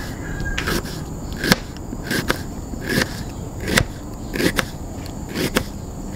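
Small kitchen knife slicing through a half onion and tapping the plastic cutting board beneath it, a steady run of crisp cuts about one every three-quarters of a second.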